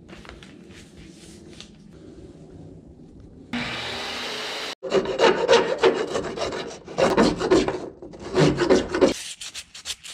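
A flat hand file rasping back and forth across the cut edge of a thin-wall PVC pipe in a run of scraping strokes, deburring it. Near the end it gives way to lighter, quicker strokes of sandpaper on the plastic.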